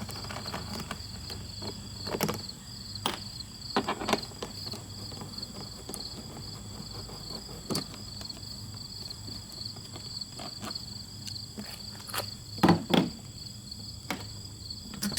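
Crickets chirping steadily in the background, with scattered clicks and knocks of hand tools as the fuel-tank screws are taken off a Honda GC160 engine. The loudest knocks come about 12 to 13 seconds in.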